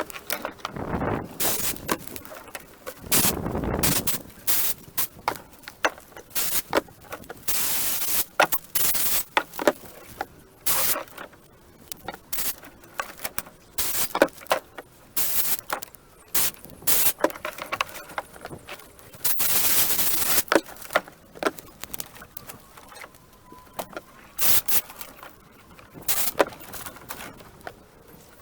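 Irregular knocks, clicks and scraping rustles of tree branches being handled and loaded into a small boat, with brief noisy bursts of rustling about eight seconds in and again about twenty seconds in.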